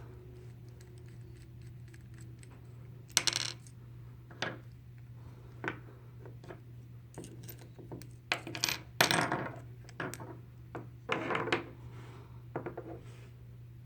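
Metal clinks, clicks and short ringing knocks as an opened American 1105 padlock and metal tools are handled and set down while the lock is taken apart. They come irregularly, loudest about three, nine and eleven seconds in, over a steady low hum.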